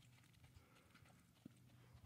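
Faint, muffled hoofbeats of a quarter horse moving under saddle on soft arena dirt, with a few low thuds, the loudest about a second and a half in.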